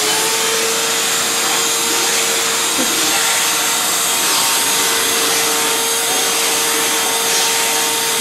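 Household vacuum cleaner running steadily: a constant motor whine over a broad rush of air.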